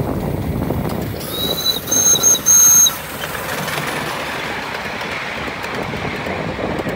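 A ride-on miniature railway locomotive's whistle sounds three short, high-pitched blasts about a second in. Under it is the steady running noise of the train on the track.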